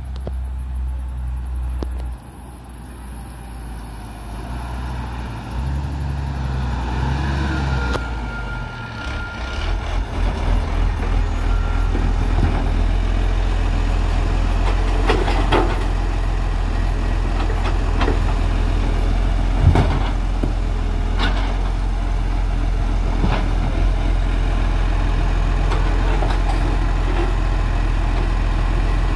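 Side-loader garbage truck drawing up and then idling with a steady low drone. Over it come a series of sharp clunks and bangs as its automated grab arm lifts a wheelie bin and tips it into the hopper.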